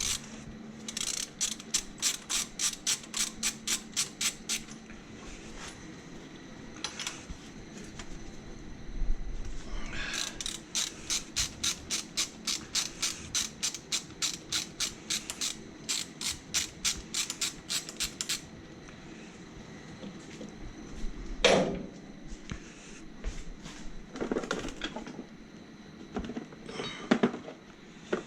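Ratchet wrench clicking in two long runs, about five or six clicks a second, as the camshaft gear bolts are loosened and spun out. A single knock comes about three-quarters of the way in, then a few light metallic clinks near the end.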